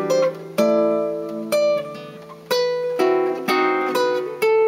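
Guitar playing a jazz chord-melody passage: a series of chords struck one after another, each left to ring with the melody note on top.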